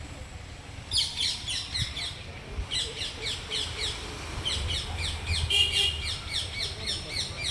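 Wild parrots calling: from about a second in, rapid runs of short, high, downward-sweeping chirps, with a longer, rougher call near the middle.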